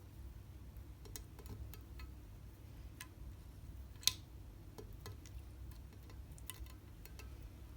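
Slime being worked by hand, giving small scattered clicks and pops at irregular intervals, with one sharper pop about four seconds in.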